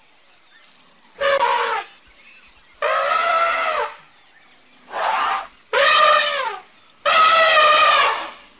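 Baby elephant trumpeting: five high-pitched, horn-like calls in quick succession, each about a second long, the longest near the end.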